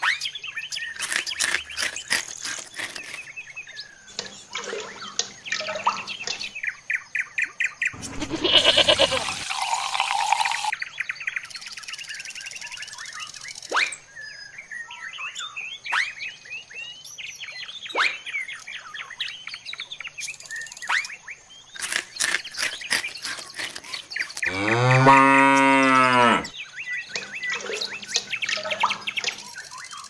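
Birds chirping and tweeting with many short calls. A cow moos once loudly about twenty-five seconds in, and a louder, rougher sound comes about eight seconds in.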